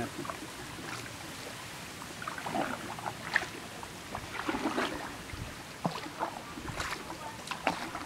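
Water lapping around a patched wooden canoe moving along a river, with scattered small splashes and drips.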